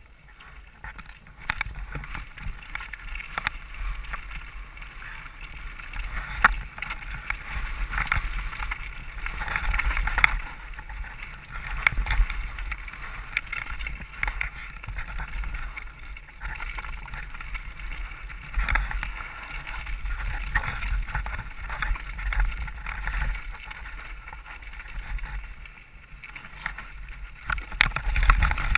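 Mountain bike riding down a rough dirt and rock trail: knobby tyres crunching over dirt and stones, and the bike rattling and clattering with many sharp knocks over bumps, over a low rumble of wind on the helmet-mounted microphone.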